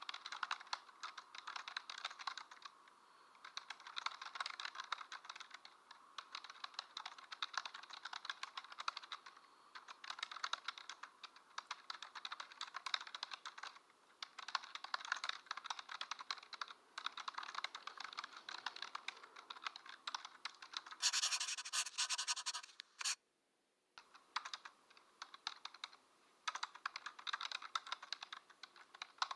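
Computer keyboard typing: fast runs of key clicks broken by short pauses. A louder, hissier stretch comes about three quarters of the way through, then the sound cuts out completely for about a second.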